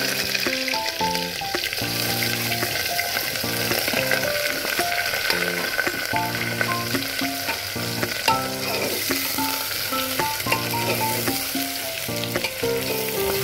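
Sliced onions sizzling as they fry in hot oil in an aluminium pressure cooker, stirred with a metal spoon. A soft stepped melody of background music plays over the sizzle.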